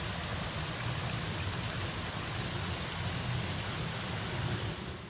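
Steady, even rush of flowing river water, fading slightly near the end.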